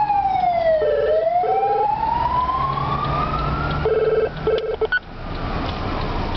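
A siren wail that slides down in pitch and then climbs slowly back up, with pairs of short steady beeps sounding over it. It drops off abruptly about five seconds in, leaving a fainter falling wail.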